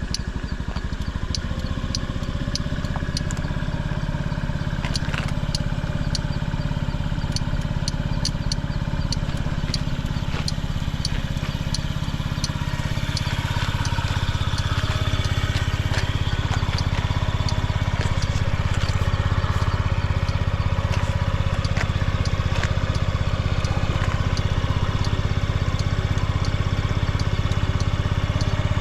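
Carbureted Honda Zoomer AF58 50cc scooter engine idling steadily with no abnormal noise. It gets slightly louder a little under halfway through.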